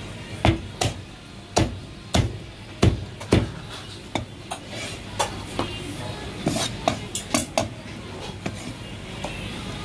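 Heavy cleaver chopping marinated meat on a plastic cutting board: a quick, irregular run of sharp chops, the loudest in the first few seconds.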